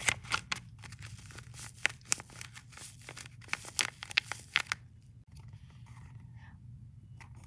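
Sheets of paper crinkling and rustling in the hands as a folded paper bag is opened, a quick run of sharp crackles that stops about five seconds in. A few faint marker strokes on paper follow.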